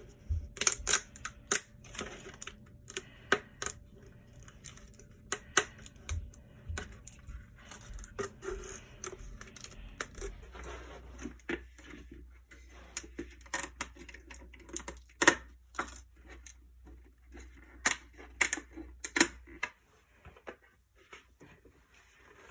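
Printed plastic support material being snapped and pried off a 3D print, with irregular sharp clicks and cracks.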